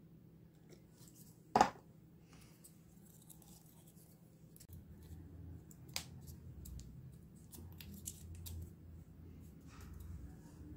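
Small handling sounds of hands working with model plant parts: one sharp click about a second and a half in, then scattered lighter clicks and rustles, with a low hum underneath in the second half.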